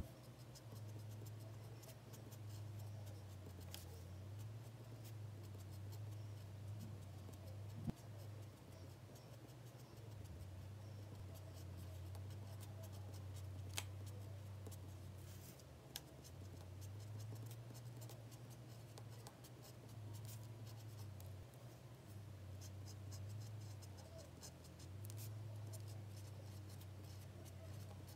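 Pen writing by hand on a paper card: faint scratching of the nib across the paper, with a few small ticks and a steady low hum beneath.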